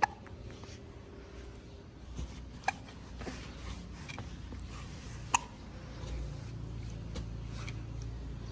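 A baby hiccuping: three short, sharp hiccups about two and a half seconds apart.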